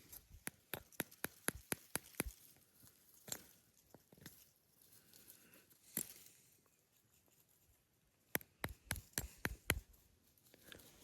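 Footsteps on dry, stony ground: sharp crunches and clicks in a quick run over the first two seconds, a few scattered ones, then another run near the end.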